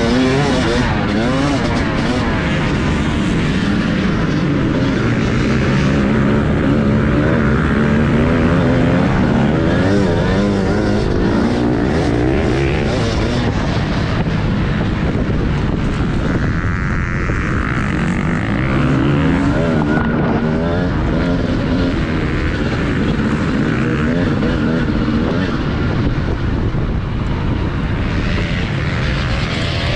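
TM Racing 250 motocross bike engine heard from onboard, revving up and down repeatedly as the rider accelerates, shifts and backs off around the track, with wind and track noise beneath it.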